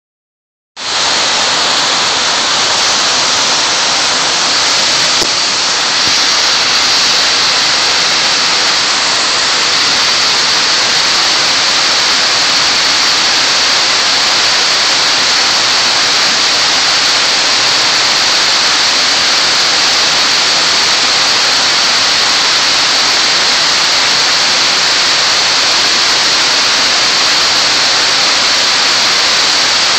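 Steady, loud rush of water pouring down a tall water-wall fountain and crashing into the basin at its foot, starting abruptly just under a second in.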